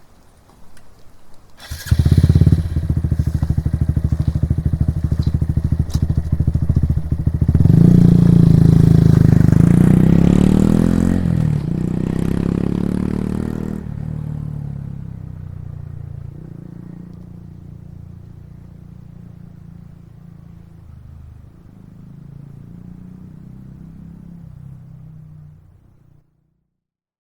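Honda Monkey 125's air-cooled single-cylinder engine exhaust: it comes in suddenly and runs steadily, revs up with a rising pitch about eight seconds in, then settles lower and fades away until the sound cuts off near the end.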